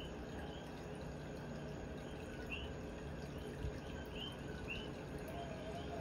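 Coquí frogs calling: short rising chirps, one or two a second, over a steady low background noise.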